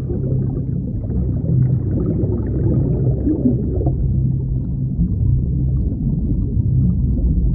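Scuba diver's exhaled air bubbling underwater, a continuous low rumbling gurgle, as air is blown out through the nose to push water out of a flooded mask.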